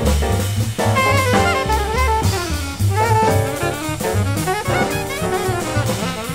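Live small-group bebop jazz: an alto saxophone plays a running solo line over drum kit with ride cymbal, upright bass and piano.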